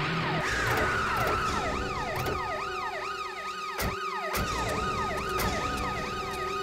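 Vehicle siren yelping, a fast rise and fall about two or three times a second, with a couple of sharp thuds about four seconds in.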